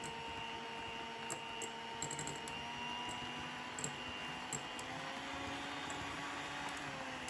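Electric hand mixer running steadily with a motor whine, its beaters whipping liquid cream in a glass bowl. A few light clicks come from the beaters knocking the bowl.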